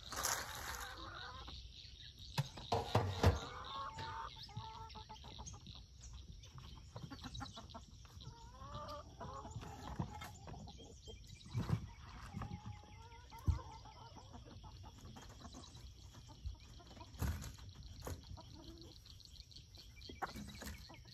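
Chickens clucking on and off, with a steady high insect trill behind them. Feed is scattered in a rush of noise near the start, and a few sharp knocks follow.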